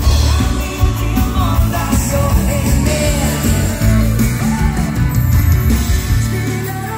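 A live dansband playing an up-tempo rock'n'roll number with electric bass, drums and guitar, a woman singing over it.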